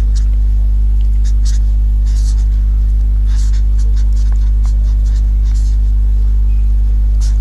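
Marker pen scratching across paper in short strokes while writing, over a loud steady electrical hum.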